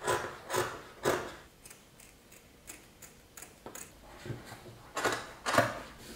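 Scissors snipping through linen fabric in a series of short, irregular cuts, louder in the first second and again near the end.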